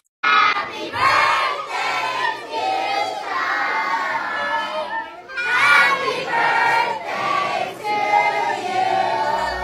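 A group of children and adults singing and shouting together, many voices at once, starting suddenly a moment in.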